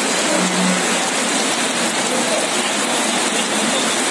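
River in flash flood, the swollen water rushing past as a loud, steady wash of noise.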